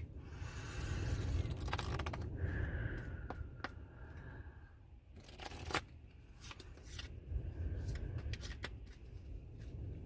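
A deck of tarot cards handled in the hands: short sliding scrapes and scattered light clicks of the cards, over a low steady rumble.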